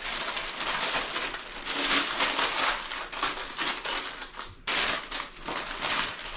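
Parchment paper crinkling and rustling as it is pressed down by hand and peeled back off a sticky chocolate dough layer, in uneven bursts, cutting out for an instant a little past halfway.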